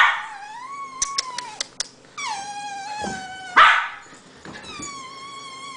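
A dog howling and whining in long, wavering high calls, with a short, loud noisy yelp at the start and another about three and a half seconds in.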